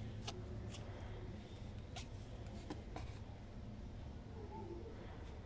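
Handling noise from a smartphone turned over in the hand: about five light, sharp clicks and taps in the first three seconds, over a low steady hum.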